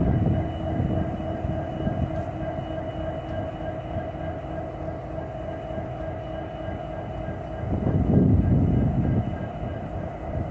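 NYSW SD70M-2 diesel-electric locomotive, its EMD 710 prime mover running close by with a steady low rumble and high steady whines. About eight seconds in, the rumble swells louder for a second or two.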